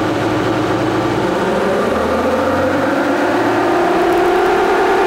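A 2003 Nissan Patrol's 3.0-litre turbo diesel engine running hard under load on a chassis dyno, with the tyres driving the dyno rollers. The pitch climbs slowly as the run builds.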